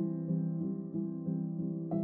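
Background music: a gentle melody of evenly spaced notes, about three a second, over held chords.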